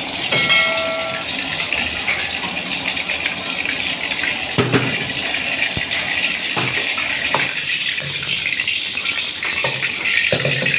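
Steady rushing hiss of a gas wok burner under a wok of oil heating up. A few short knocks of a metal ladle against the wok come through it, with a brief chime about half a second in.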